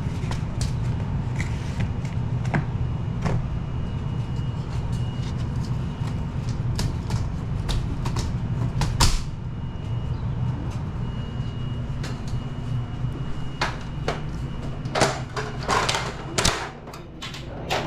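Old Lennox HVAC system running with a steady low hum and a faint, thin, high-pitched whistle: the piercing noise the system is being checked for. Scattered sharp knocks and clicks, the loudest about halfway through and several close together near the end.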